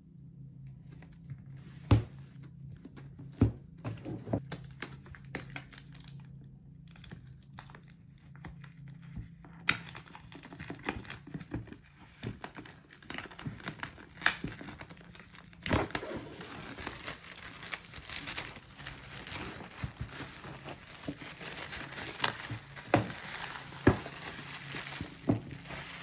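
Packaging being handled and unwrapped by hand: scattered sharp taps and knocks at first, then from about ten seconds in, continuous crinkling and rustling with some tearing and more sharp clicks.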